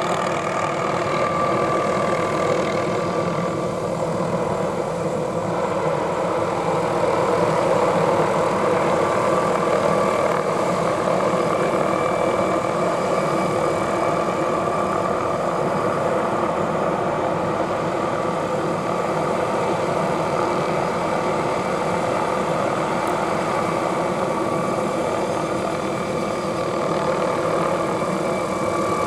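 MD 520N NOTAR helicopter hovering overhead: the steady whine of its turbine over the rush of its rotor, holding a constant pitch.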